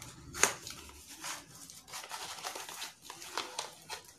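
Packaging crinkling and rustling as it is handled and opened, with a sharp click a little under half a second in.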